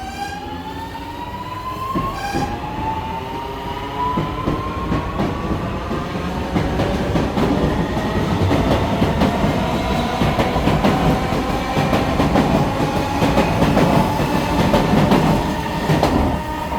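Alstom Series 8900 electric multiple unit pulling away: its traction motors whine, rising in pitch, dropping back about two seconds in, then climbing slowly again. The wheels clack over the rail joints faster and louder as it passes, fading near the end.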